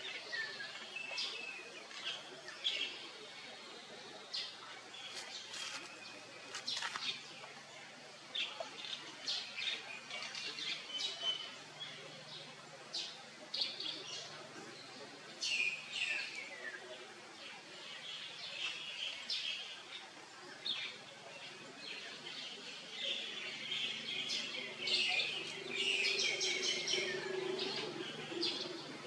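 Wild birds chirping in the surrounding trees: many short, high chirps with a few falling calls, busiest near the end.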